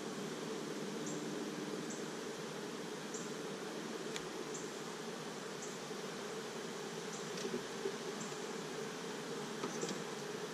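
Honeybees buzzing steadily around an opened hive, with a few light clicks in the second half.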